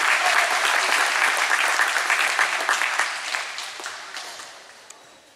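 Crowd applause, many people clapping, loud at first and then dying away over the last two seconds.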